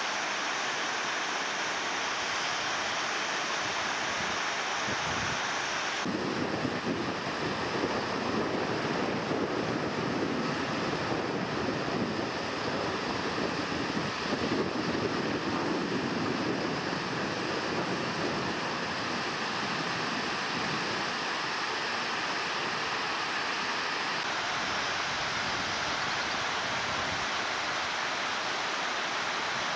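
Steady rush of white-water river rapids on the James River. Wind buffets the microphone from about six seconds in until a few seconds before the end.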